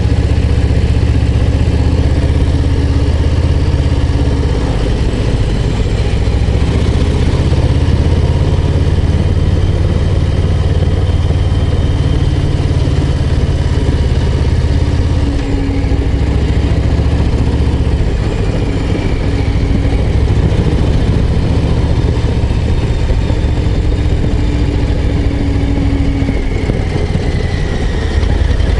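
Harley-Davidson Low Rider ST's Milwaukee-Eight 117 V-twin running under way at a steady pace, with a brief dip in the engine note about halfway through.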